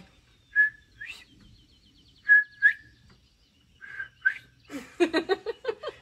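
A person whistling an imitation of the northern bobwhite's "bob-white" call three times. Each call is a short steady note followed by a rising upslurred note.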